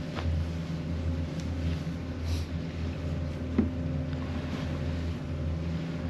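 A sailing catamaran's diesel engine running steadily under way, a low even hum, with one short click about three and a half seconds in.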